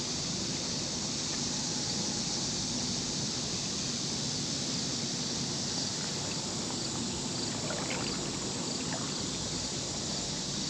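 Steady rushing outdoor noise of creek water running, mixed with the constant hum of traffic on a nearby busy road and highway.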